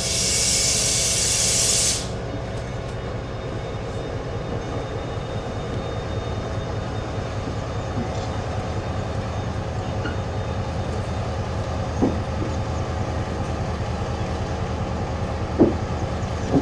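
Class 68 diesel-electric locomotive's Caterpillar V16 diesel engine running with a steady low hum as it creeps along. A loud hiss of escaping air covers the first two seconds, and a few sharp knocks come near the end.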